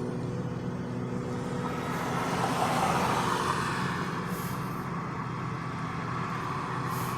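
Road noise inside a moving car: a steady low engine hum and tyre rush, swelling about two to four seconds in.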